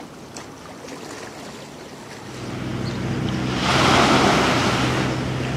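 Small lake waves washing onto the shore in wind, with a loud rush as a wave breaks a little after halfway in. A low steady drone comes in about two seconds in and runs underneath.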